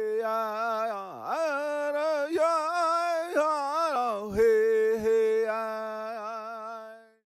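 Wordless singing in long, wavering notes with vibrato and a few pitch glides, over a steady held lower note. It fades out near the end.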